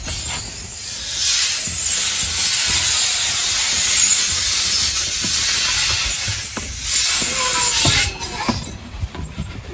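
Steady rushing hiss of a rider sliding fast down a long enclosed tunnel slide on a cloth mat. It swells about a second in, holds, and drops away about eight seconds in.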